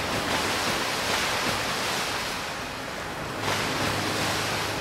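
Sea water rushing and splashing, swelling in two long surges, the second starting about three and a half seconds in.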